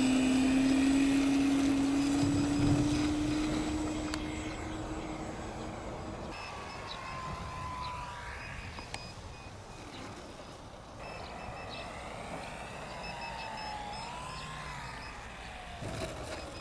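Radio-controlled model aerobatic plane's motor and propeller running at power as the plane takes off, with a steady tone that rises slightly in pitch and then fades as it flies away. Later its whine comes back fainter and glides down in pitch as it passes, rising and falling once more near the end.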